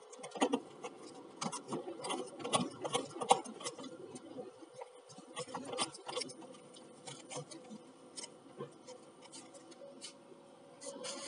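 Hands working on the fittings on top of a lead-acid battery: scattered light clicks and taps with some rubbing, at irregular intervals.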